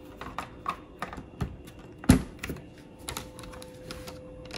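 Light clicks and taps from a plastic TV speaker housing being handled and pressed down onto the TV's metal chassis to seat its rubber grommets, with one louder knock about two seconds in.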